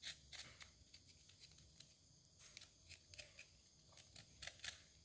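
Faint, irregular scraping strokes, several a second, as the skin is scraped off a piece of fresh ginger root.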